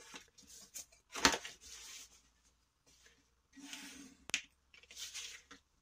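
Thick paper rustling as it is folded and pressed flat by hand, with a loud rustle about a second in. Then a pencil scratches along a ruler in two strokes, drawing a line, with a sharp tap between them.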